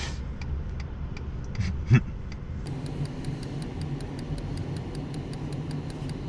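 A rapid, even ticking, about five ticks a second, that grows crisper from about halfway through, over the low steady hum of the truck's idling engine. There is a single loud knock about two seconds in.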